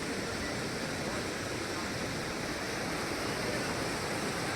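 Steady rushing water of a mountain stream, an even, unbroken noise.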